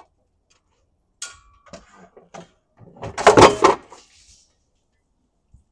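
Kitchen clatter from objects being handled: a few light knocks and clinks, one with a short ring, then a loud rattling clatter about three seconds in that lasts about a second.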